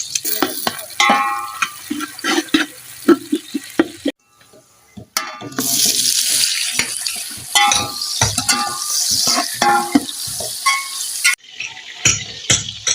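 Sliced onions frying in hot oil, sizzling, as a spoon stirs them and clatters against the pot. The sizzle cuts out briefly about four seconds in, then comes back fuller.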